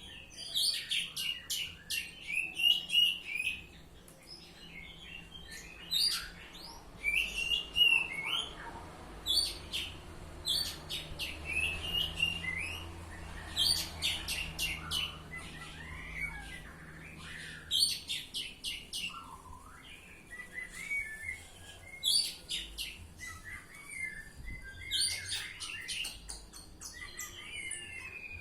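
Oriental magpie-robin (kacer) singing, with phrase after phrase of sharp, rapid notes mixed with whistles and short pauses between.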